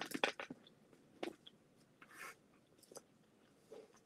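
A person chewing candy with her mouth closed: faint, scattered wet clicks and small crunches, with a brief soft noise about two seconds in.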